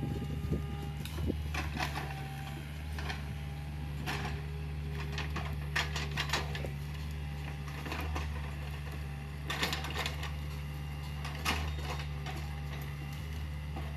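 Hitachi mini excavator's diesel engine running steadily with a low hum, while the bucket and arm give irregular sharp clanks and knocks as it digs soil and pushes through branches, with a few short whining tones.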